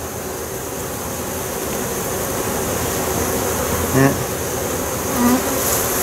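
A dense mass of honey bees buzzing in an open hive box, a steady hum that grows slightly louder over the few seconds.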